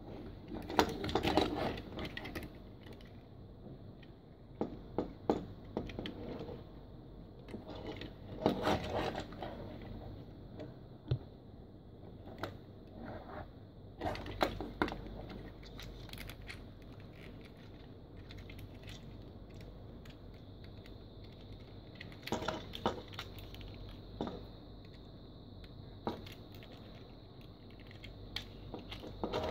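Plastic parts of a Transformers action figure clicking and rattling as it is handled and its joints are moved. The clicks are scattered, with denser bursts about a second in, around eight seconds and around twenty-two seconds.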